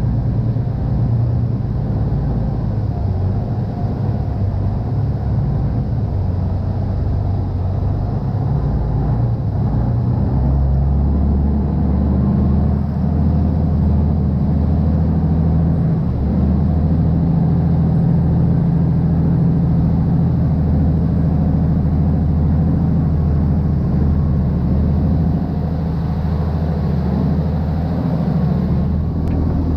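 Large boat engine running steadily under way, a deep rumble whose note changes about ten seconds in.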